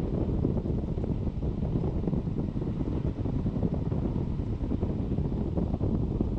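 Steady low rushing of a car's air-conditioning blower running on high with the engine idling, heard inside the cabin.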